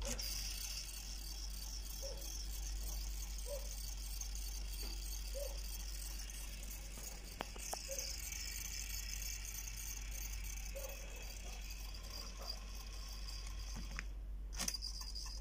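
Low steady hiss and hum with a few faint clicks and taps from buttons being pressed on a phone and on a car cassette stereo's front panel. No music is playing yet.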